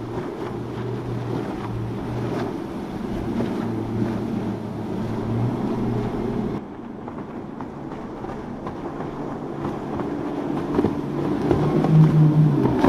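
Outboard motors of center-console fishing boats running at speed, with wind on the microphone. The engine sound breaks off abruptly about six and a half seconds in, and a different boat's engine takes over, growing louder and higher-pitched near the end as it passes close.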